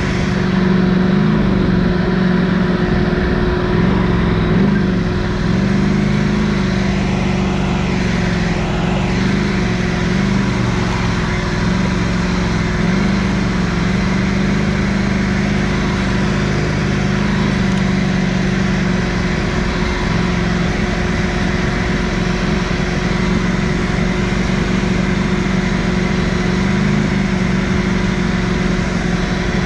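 Quad (ATV) engine running while being ridden off-road, its engine speed rising and falling a little over a steady noise of the ride.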